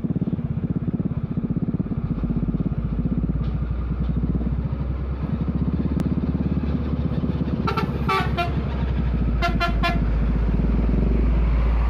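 Heavy Hino dump truck's diesel engine running as it approaches. Its horn sounds two quick series of short toots, the first about eight seconds in and the second about a second and a half later.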